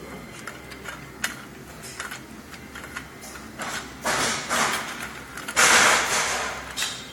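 Metal casters being handled and screwed into the upturned frame of a wire sheet cart: light clinks and taps, then two louder scraping sounds about a second long each, the second the loudest.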